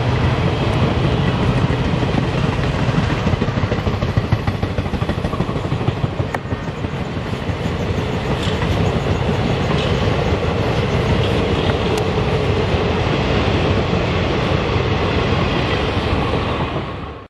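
Indian Railways passenger coaches rolling past on the rails: a steady loud rumble and rattle of wheels and bogies, with a few sharp clicks from the track.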